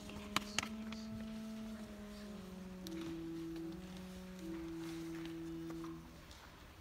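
Instrumental introduction of a choral hymn: sustained chords that change every second or so, with two sharp clicks near the start. The chords fall away about six seconds in.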